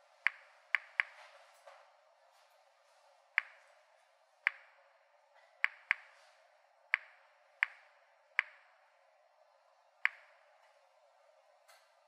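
Geiger counter (Mini-Instruments Series 900 mini-monitor) clicking at random intervals, about eleven sharp clicks in twelve seconds, each with a short ring. Each click is one ionising particle counted, the weak radioactivity of potassium-40 in a pile of 280 bananas.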